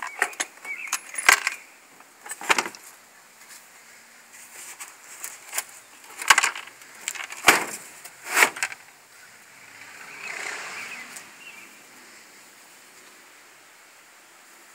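Sharp clicks and knocks from hard plastic tool cases and their latches being handled, about half a dozen spread over the first nine seconds. A short, soft rushing sound follows about ten seconds in.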